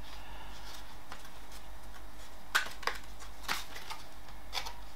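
Clear plastic blister packaging for two RAM sticks handled and turned in the hands, giving four faint clicks and crackles over a steady low hum; the first click is the loudest.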